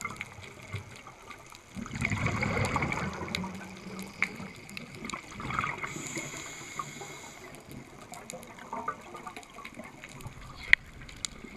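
Underwater scuba-dive sound: a diver's exhaled bubbles gurgling past, loudest in a burst about two seconds in and again more softly later, with scattered sharp clicks and one loud click near the end.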